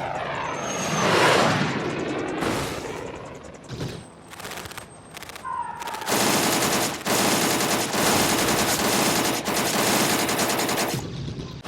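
Sound-effects battle mix of automatic gunfire: a loud sweeping rush in the first two seconds, a quieter stretch, then a sustained, very rapid rattle of machine-gun fire from about halfway that cuts off shortly before the end.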